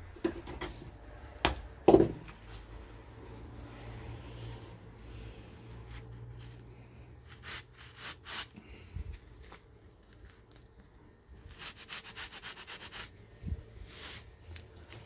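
Rubbing and scraping on a bayonet being cleaned by hand, with a sharp knock about two seconds in and a quick run of back-and-forth scraping strokes near the end. A faint low hum sits under the first half.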